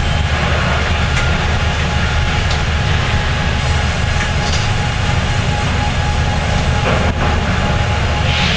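Steady, loud sawmill machinery noise from a log carriage with independent headblocks as it carries a log along its rails: a dense low rumble with mechanical clatter over it.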